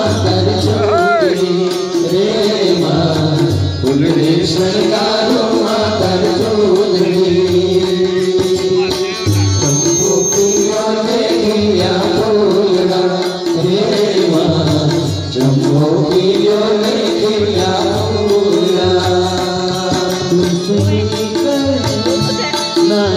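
Live Indian folk devotional song: male voices singing over harmonium, with tabla keeping the rhythm.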